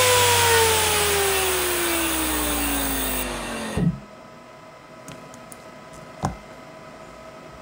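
Nidec Servo G1238V50BGYP-76 120 mm brushless fan winding down after its power is cut, its whine and air rush falling steadily in pitch and fading. About four seconds in it ends with a short thump, then only faint room noise with a small tick.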